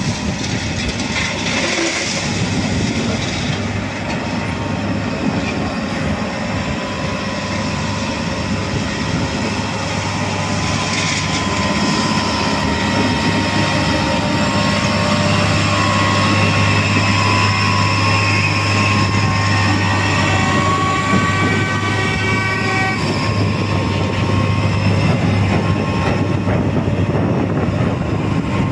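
Track-laying work train with sleeper gantry cranes on its flatcars: steady mechanical and rail running noise. Partway through, a low hum grows stronger and high whining tones join, then the tones cut off sharply.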